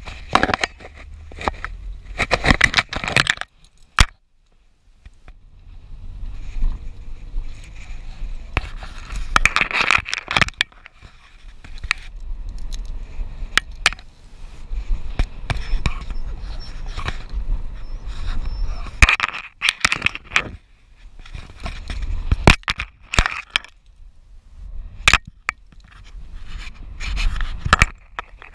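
Low road rumble of a moving van, broken by several bursts of close scraping and rustling right at the microphone as the camera is moved and rubbed against things, with scattered clicks.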